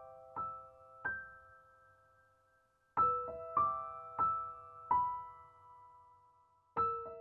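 Soft solo piano music: gentle struck notes that ring and fade, a short phrase, a brief lull, then a new phrase of notes about three seconds in.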